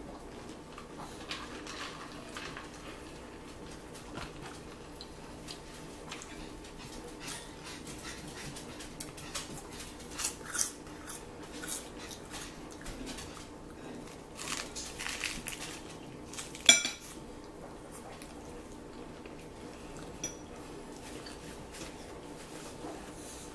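Eating at a table: chewing with scattered clinks of cutlery against dishes, the sharpest clink about two-thirds of the way through.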